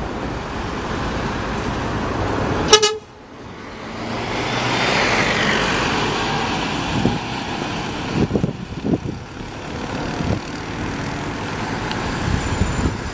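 Street traffic with one short horn toot about three seconds in, then a Scania K 250 UB city bus with a five-cylinder diesel passing close by and pulling away. Its engine and tyre noise swells and then falls in pitch.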